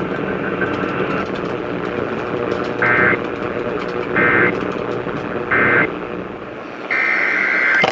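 EAS end-of-message data tones: three short bursts of two-tone digital screech, a little over a second apart, over steady broadcast background noise. Near the end a longer burst of the same data sound begins the header of the next alert.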